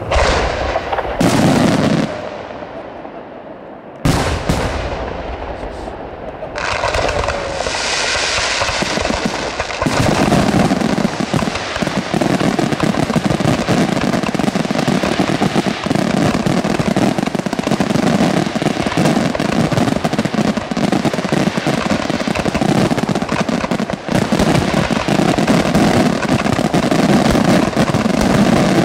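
Aerial firework shells bursting. A few separate loud bangs come in the first seven seconds. From about ten seconds in they run into a dense, continuous barrage of rapid-fire explosions.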